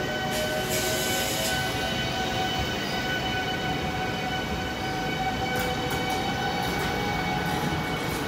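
SNCB M7 double-deck electric passenger train rolling past on the near track: wheel-on-rail noise with steady electric whine tones, one of them rising slightly in pitch, and a brief hiss about a second in.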